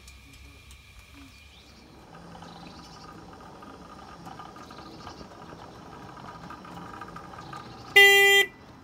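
A 5-inch gauge miniature locomotive running with a steady electric hum as it approaches from about two seconds in, then one short, loud toot of its horn near the end, lasting about half a second.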